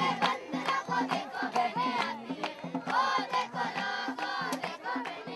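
Indian folk-style song: voices singing together to a harmonium, with short hand-drum strokes keeping a steady beat.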